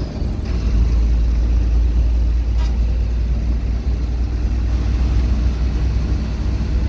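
Steady low rumble of a moving bus heard from inside the cabin: engine and road noise.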